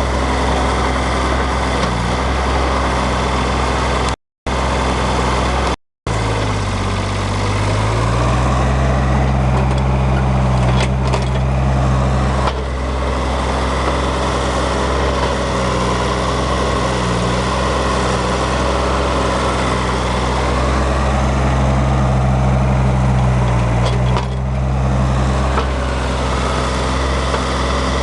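Hanix 037 mini excavator's diesel engine running steadily, rising in engine speed about seven seconds in and shifting a little under changing load. The sound cuts out completely twice, briefly, in the first six seconds.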